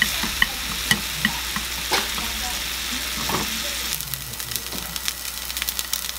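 Diced bacon sizzling in a frying pan as it crisps over low heat. Wooden chopsticks stirring it click against the pan about every half second in the first two seconds. From about four seconds in, the sizzle breaks into frequent small crackles and pops.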